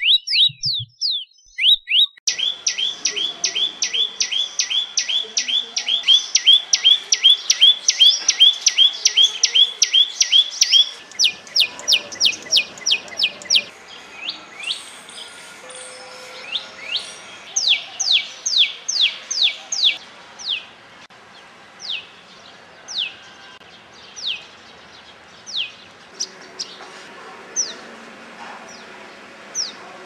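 Common tailorbird calling: a fast, even series of sharp, high, down-slurred notes, about four a second, that about eleven seconds in gives way to single notes spaced roughly a second apart.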